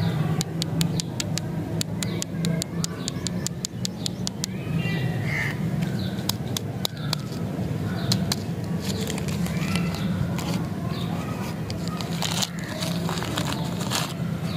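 Plastic lollipop wrapper crinkling as it is peeled open, in the last few seconds. A steady low hum runs underneath, and a quick run of sharp clicks comes in the first few seconds.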